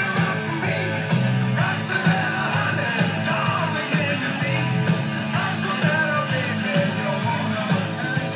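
Rock music with singing played from a vinyl record on a Marantz TT483 turntable through a Marantz PM583 amplifier and its speakers. The sound is thin, with no deep bass and dull highs.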